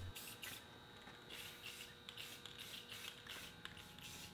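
Aerosol spray can of matte clear enamel giving a series of faint, short hisses, sprayed in quick irregular bursts.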